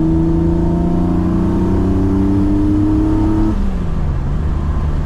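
BMW M30B35 3.5-litre straight-six with individual throttle bodies and a full exhaust, heard from inside the cabin, pulling under throttle. About three and a half seconds in, the pitch drops and the engine settles to a steady, lower drone. It is running on a rough, very rich startup tune.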